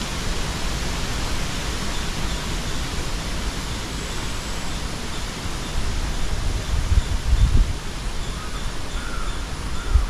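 Steady wind noise in an open field, with gusts buffeting the microphone as low rumbles about seven seconds in, and faint chirps near the end.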